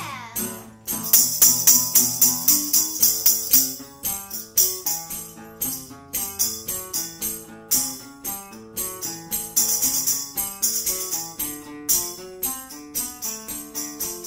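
Instrumental passage of live music: a tambourine jingles in a steady rhythm over a run of picked guitar notes. The tambourine is loudest from about a second in and again later on.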